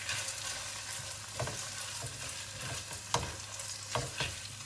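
Washed, drained rice and chicken pieces sizzling as they are stir-fried in a nonstick pot, with a few short scrapes and knocks of the spatula against the pot, the loudest about three seconds in.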